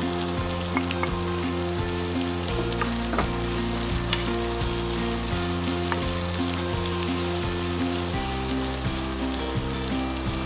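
Sliced sausages, tomato and onion sizzling in a non-stick frying pan while being stirred with a wooden spatula, with scattered light knocks of the spatula on the pan. Background music with sustained chords plays throughout.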